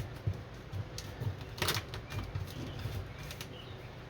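Crinkling, rustling and light clicks of foil-faced butyl sound-deadening sheet being handled and pressed into place, with one louder crackle a little under two seconds in.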